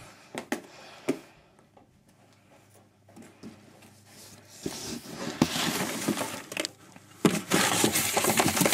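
Cardboard packaging being handled: a few light knocks, then from about halfway loud crackling and crumpling, most intense near the end.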